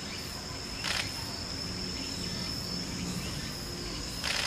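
Steady high-pitched drone of insects, with a short hiss about a second in and another near the end.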